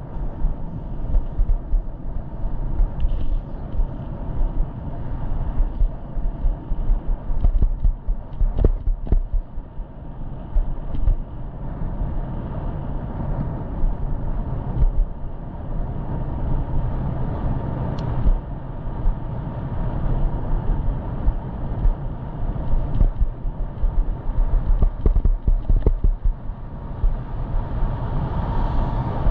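Wind buffeting the microphone of a head-mounted GoPro Hero8 while riding a pedelec e-bike, an uneven gusting noise heavy in the low end, with a few small clicks scattered through.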